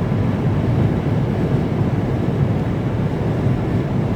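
Steady low rumble of road and engine noise inside a moving vehicle's cabin, with strong gusts of wind buffeting the vehicle.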